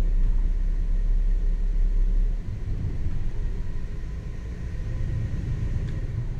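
Motor yacht's inboard engine running with a steady low hum, throttled back about two and a half seconds in as the boat is slowed.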